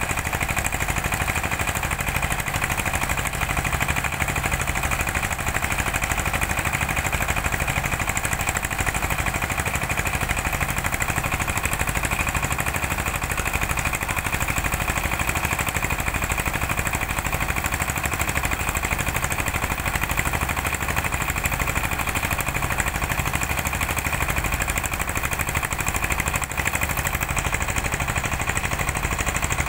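Engine running steadily with a fast, even clatter while the water truck's tank is filled.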